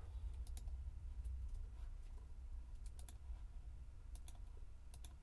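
Light, scattered clicks of someone working a computer, several in quick pairs, over a low steady hum.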